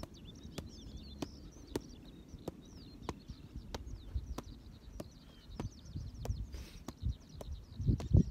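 Soccer ball being juggled, each touch of the foot or thigh a short thud in a steady rhythm of about one and a half touches a second. Small birds chirp throughout.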